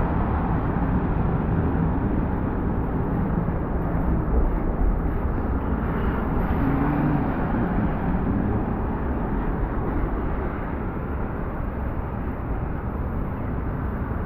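Steady city street noise with vehicle traffic running and a constant low rumble.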